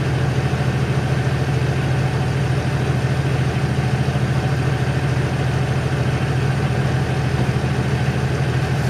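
Six-cylinder passenger-car diesel engine idling steadily, with an even, rapid diesel clatter.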